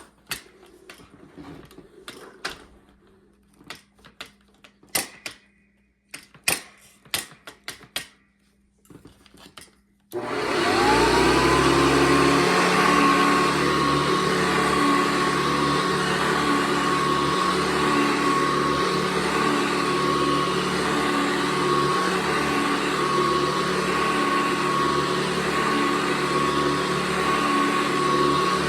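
Several clicks and knocks, then about ten seconds in a Hoover Decade 80 vacuum cleaner switches on. Its motor whine climbs quickly to a steady high tone over a loud hum, and it runs evenly from then on.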